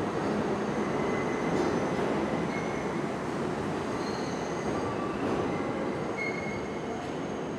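R32 subway train moving slowly along the track with a steady rumble, and brief high-pitched wheel squeals breaking in again and again.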